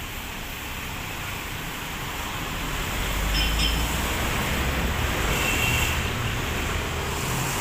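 Steady road-traffic noise of passing cars and trucks, with a low rumble that swells about three seconds in and eases off near the end.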